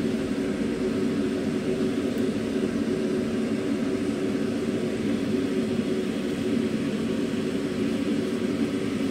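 A steady, unchanging low mechanical drone with a constant hum, like a running kitchen appliance.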